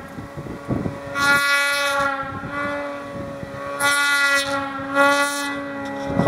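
Snowmobile engine held at high, steady revs while ploughing through deep powder, its pitch constant and its loudness surging three times, about a second in, around four seconds and around five seconds.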